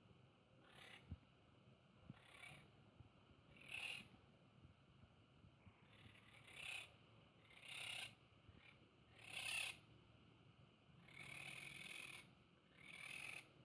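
Caged green parakeets giving harsh, scratchy squawks, about eight short calls a second or two apart, with a longer one about eleven seconds in.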